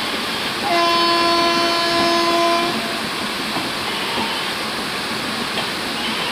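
Train horn sounding once for about two seconds, starting about a second in, as a steady multi-note chord. Underneath it is the steady rush of heavy rain and passenger coaches rolling past.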